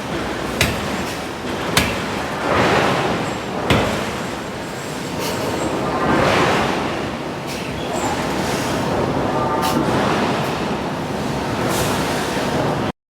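Forge shop noise from a hydraulic forging hammer at work: a few sharp knocks of metal striking over a continuous loud rushing roar that swells and fades several times. The sound cuts off suddenly near the end.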